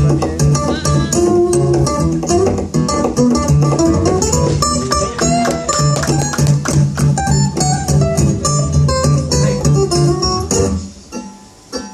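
Live acoustic guitar and bass guitar playing, quick plucked guitar notes over a pulsing, repeated bass line. The music drops away suddenly near the end.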